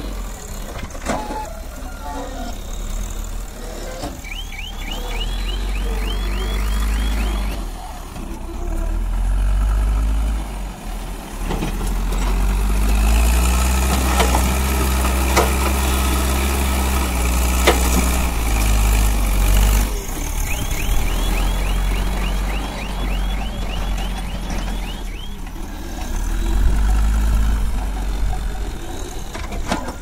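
Caterpillar 424B backhoe loader's diesel engine running, swelling louder for several seconds midway as it works under load digging and lifting soil, with a few sharp knocks. Two short runs of rapid high chirps come in, one early and one late.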